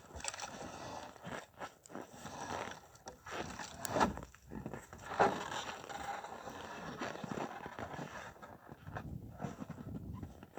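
Irregular scraping and crunching from handwork, with two louder knocks about four and five seconds in.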